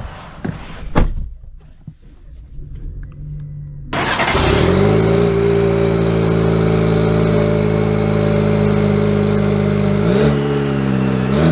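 The 2023 Chevy Silverado 1500's 2.7-litre turbocharged four-cylinder engine starts about four seconds in, after a few faint clicks. It settles into a steady idle, then is revved briefly twice near the end.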